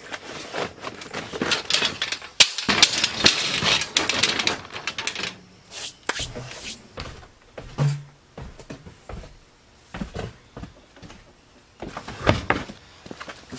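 Gear clattering, knocking and rattling as items are moved around and handled in a plastic storage tote, with a run of rustling around the first few seconds.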